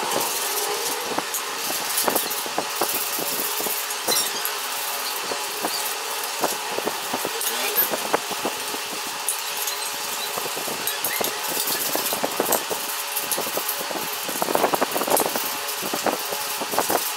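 Hand sanding of a metal motorcycle horn and its bracket with sandpaper: a steady scratchy rasp of paper rubbing on metal, made of many quick strokes.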